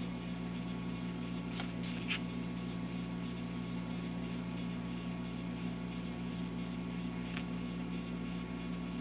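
Steady low electrical hum, with a few faint clicks from handling small parts.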